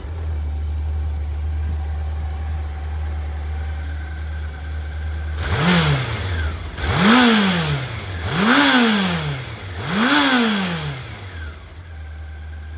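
1984 Honda CBX750F's air-cooled inline-four idling steadily, then blipped four times in quick succession, each rev rising and dropping back, about a second and a half apart, before settling to idle near the end. It runs smoothly with no abnormal noises, which the seller takes as the engine being in top condition.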